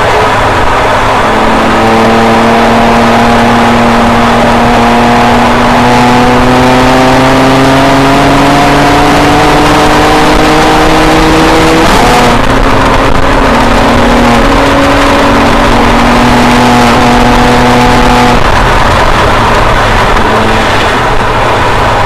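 BMW 335i's twin-turbo N54 inline-six pulling at full throttle from inside the cabin, its pitch climbing slowly for about ten seconds, then one upshift about twelve seconds in, with no misfire flare on its custom transmission tune. It then runs on at a steady pitch and drops away near the end as the throttle lifts, over constant wind and road noise.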